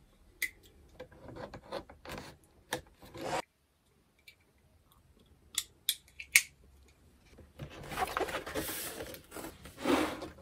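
Cardboard packaging being cut and opened by hand: clicks and short scraping, cutting strokes, then a longer rustling, sliding noise as the box lid comes open.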